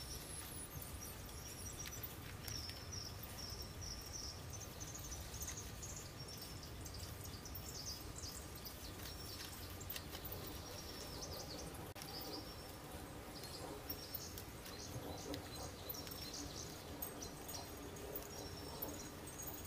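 Outdoor yard ambience: small birds chirping in short, high, repeated notes over a low steady rumble, with scattered faint ticks.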